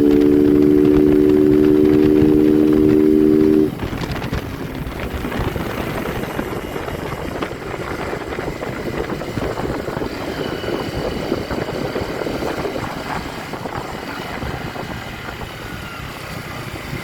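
A loud, steady hum of several held tones cuts off suddenly about four seconds in. It gives way to the running of a motorcycle being ridden, with engine rumble and wind and road noise.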